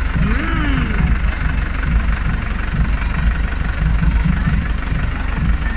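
Steady low rumble of the engine of the vehicle drawing a parade float as it moves slowly past. A short voice-like call rises and falls near the start.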